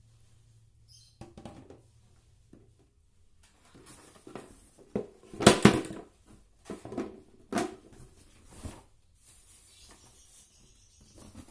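Hollow plastic knocks and clatter as a stand fan's plastic base and pole are handled and set down, the loudest a quick double knock about halfway through, followed by a few lighter knocks. Near the end comes a soft rustle of cardboard as the box is handled.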